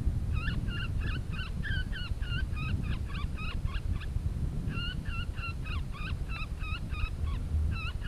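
A rapid run of short honking calls, about four a second, with a brief pause about halfway, over a steady low rumble.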